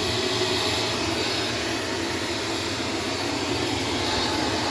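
Shark vacuum cleaner running steadily, an even motor and airflow noise.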